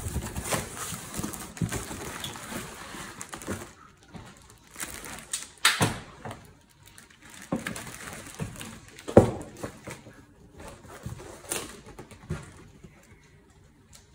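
Unboxing an ironing board in its plastic wrap: cardboard scraping and plastic crinkling as it slides out of the box. Then come several separate sharp knocks and rustles, the loudest about nine seconds in, settling quiet near the end.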